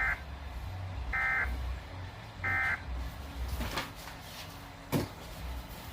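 Three short bursts of weather radio SAME digital data tones, a harsh buzzing warble about 1.3 s apart. They are typical of the end-of-message code that closes an alert. A couple of faint clicks follow in the second half.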